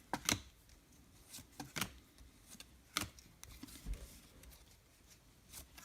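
Baseball trading cards being handled and flipped through: a few scattered light clicks and slaps of card stock, with quiet handling between them.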